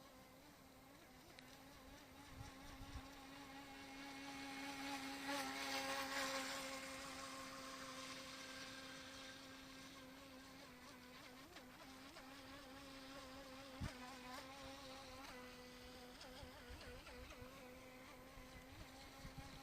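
Electric motor of a UDI Rapid RC speedboat running at speed: a steady, high, buzzing whine that swells to its loudest about six seconds in and then fades. A single sharp click comes about fourteen seconds in.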